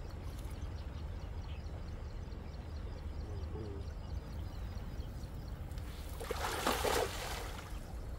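A cast net thrown out over a river, landing on the water with a brief, loud splashing hiss about six seconds in, over a steady low wind rumble on the microphone.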